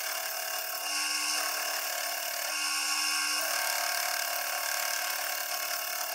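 Metal lathe running steadily while a turning tool cuts the flats off a brass nut, bringing it round: a constant machine sound with several steady tones over the hiss of the cut.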